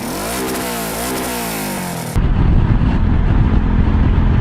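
Motorcycle engine accelerating, its pitch climbing and dropping back several times through quick gear changes. About two seconds in it switches abruptly to a louder, steadier low engine rumble.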